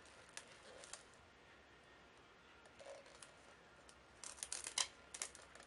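Faint handling sounds of shiny decorative tape being pressed and smoothed around a glass jar, with a quick run of crinkling clicks about four seconds in.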